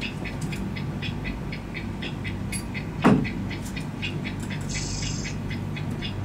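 A steady low rumble with quick, regular clicking, about four clicks a second, and one heavy thump about three seconds in. A short high whine comes just before the five-second mark.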